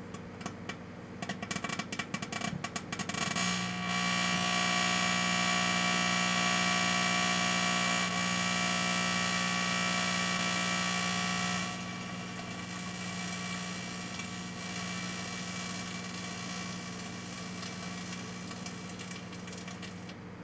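Microwave oven running with a steady hum while a toner cartridge burns inside it. A run of sharp crackles about a second in gives way to a louder buzzing for about eight seconds, which then drops back to a quieter steady sound.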